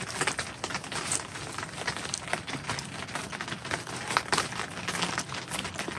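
Rain pattering on the tent fabric, heard from inside as a steady hiss with many irregular drop ticks.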